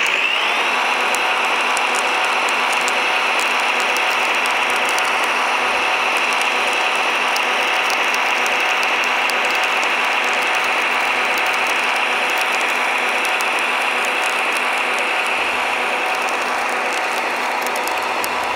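Electric motor and gear drive of a radio-controlled model construction machine running steadily: a gritty whirring whine whose pitch rises at the start, then holds.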